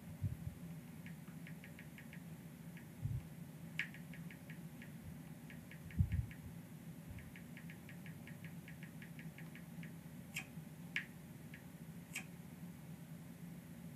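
Faint, quick fingertip taps on a smartphone touchscreen, coming in short runs of several ticks with a few sharper clicks, plus low handling bumps about three and six seconds in. A steady low hum sits underneath.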